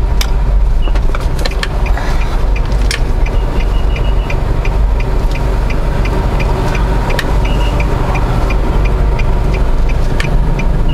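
Car cabin noise: a steady low engine and road rumble, with a light high ticking repeating about two to three times a second.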